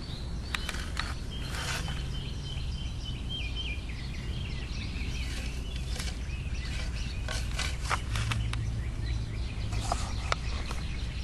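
Steady background hum with faint birds chirping, high and thin, mostly in the first few seconds, and a scattering of light clicks.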